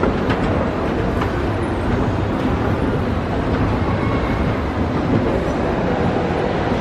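Moving escalator running with a steady mechanical rumble.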